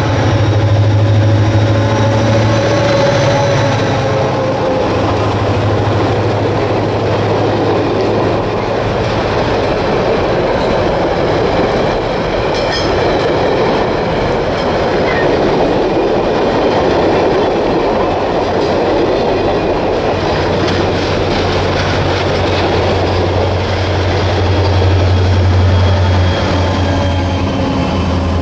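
EMD GP40-2 diesel-electric locomotive passing close by at the head of a passenger train, its turbocharged V16 diesel droning low. Then the passenger cars roll past with steady wheel-and-rail noise and clickety-clack over the rail joints.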